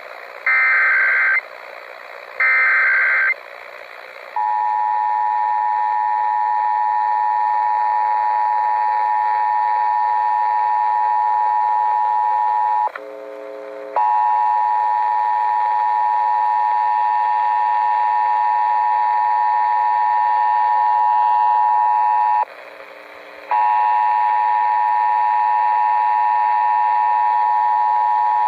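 Emergency Alert System tones over broadcast radio: two one-second bursts of SAME digital header data, a harsh warbling screech, then about four seconds in the steady two-tone EAS attention signal. The attention signal drops out briefly twice. These tones open a Required Monthly Test of the alert system.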